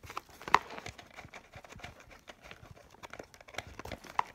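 Scattered small clicks, knocks and rubbing as a vintage Topcon camera is worked by hand against its stuck, sticky carrying case, with the sharpest knock about half a second in.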